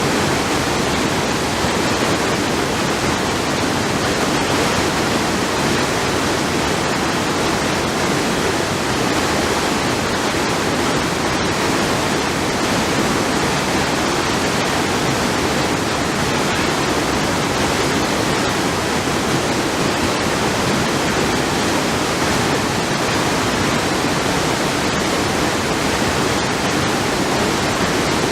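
Naena Falls, a broad waterfall carrying a huge volume of water, roaring steadily as one dense, unbroken rush of falling water.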